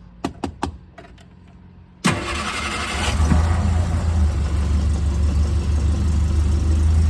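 A few light clicks, then about two seconds in the 1978 Triumph Spitfire's four-cylinder engine turns over on the starter and catches within about a second. It settles into a steady idle: a cold start with the choke held out.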